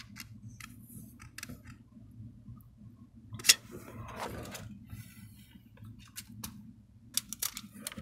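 Handling noise: scattered light clicks and taps of hands and phone moving over an opened laptop, with one sharper tap about three and a half seconds in and a brief rustle after it, over a faint low hum.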